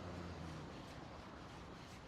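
Faint steady outdoor background noise with no distinct event, a low hum fading out about half a second in.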